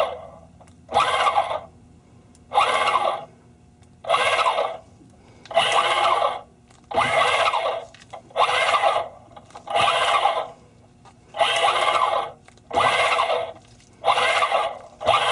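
Electric actuator motor of a Glendinning YAMAS shift unit whirring in short bursts, about one every second and a half, as it drives the shift cables.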